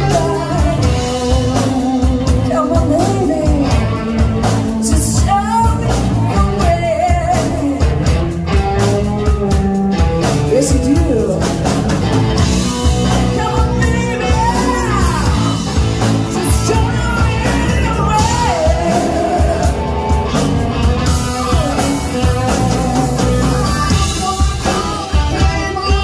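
Live rock band playing: a woman sings lead over electric guitar, bass guitar and a steady drum beat.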